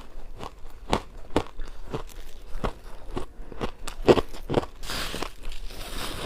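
Close-miked bites into ice: a run of sharp, separate crunches at about one or two a second, the loudest about four seconds in.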